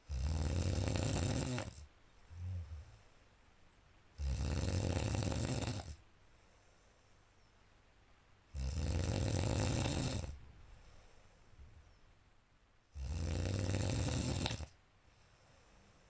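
A sleeping person snoring loudly: four long rasping snores about four seconds apart, each lasting under two seconds, with a short faint sound just after the first.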